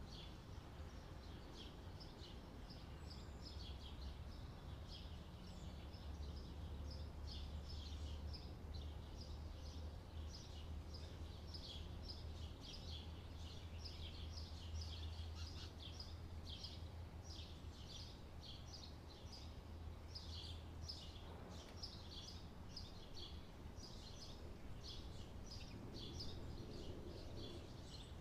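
Faint chirping of small birds, many short calls close together, over a low steady hum that stops about three-quarters of the way through.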